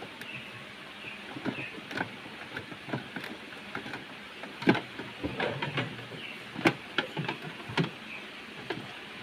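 Irregular light clicks and knocks of tools and refrigerator parts being handled, over a steady background hiss, with the sharpest knocks in the second half.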